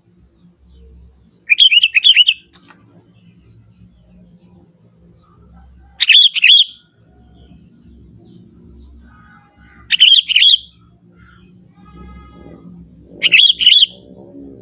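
Young sooty-headed bulbul singing: four short, loud, bubbly warbled phrases, each about half a second long, spaced roughly four seconds apart.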